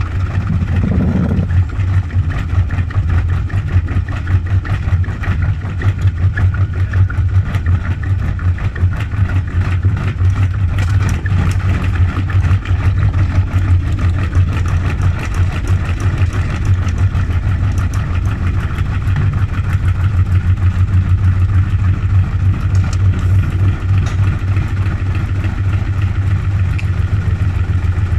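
Gorenje washing machine spinning with an unbalanced load in test mode: a steady low motor hum under fast, continuous knocking and rattling from the drum and cabinet.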